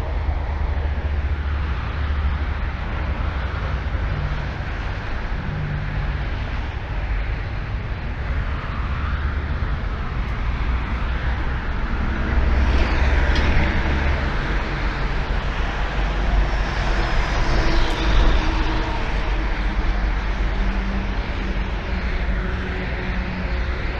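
Steady low rumble of vehicles and traffic, swelling a little about halfway through.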